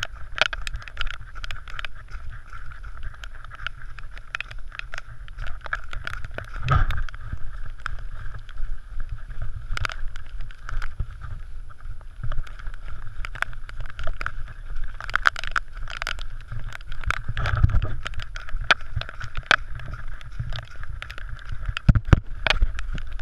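Running on a dirt trail heard through a body-mounted GoPro Hero 3: a steady low rumble from jostling and wind on the camera, with many irregular knocks and scuffs from footfalls and bumps against the camera.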